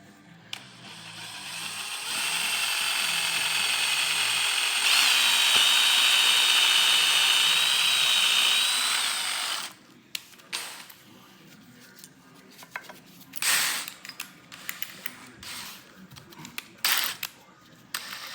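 Electric drill drilling a small hole, running for about seven seconds with a whine that steps up in pitch about halfway, then stopping suddenly. Afterwards come scattered sharp clicks and knocks of tools being handled.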